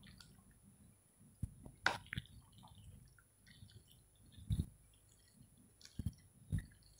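Curd rice being stirred and mixed in a bowl: faint wet squishing with a few soft knocks scattered through.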